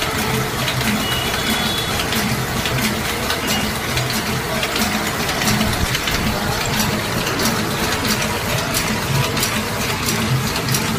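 A small sheet-fed offset printing press running. Its cylinders, gripper chain and sheet feeder clatter in a steady, evenly repeating rhythm as it prints sheets.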